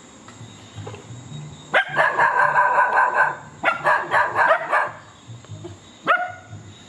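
Dogs barking in two rapid volleys about two seconds in and again around four seconds, then a single bark near the end.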